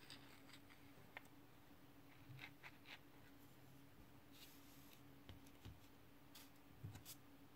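Near silence with a faint steady hum, broken by scattered faint clicks and light scrapes of small metal bicycle hub parts being handled.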